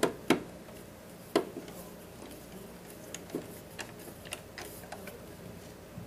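Metal screwdriver clicking against the screws of a metal outlet cover plate as the plate is screwed on: two sharp clicks about a second apart near the start, then a run of lighter, irregular ticks.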